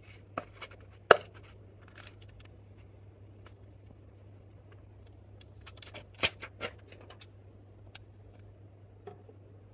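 Handling of a plastic eyeshadow palette in a snap-fastened case: a sharp snap about a second in as the case's metal press-stud pops open, then scattered plastic clicks and taps, a small cluster around six seconds in. A low steady hum runs underneath.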